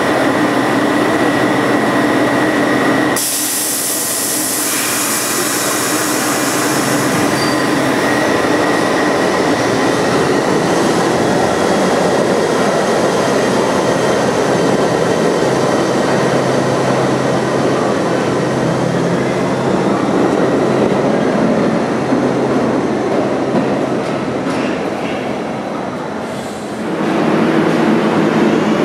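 New York City subway train on the 7 line running, with steady motor tones over loud wheel and rail noise. A sharp high hiss starts about three seconds in and lasts a few seconds, and the sound changes again near the end.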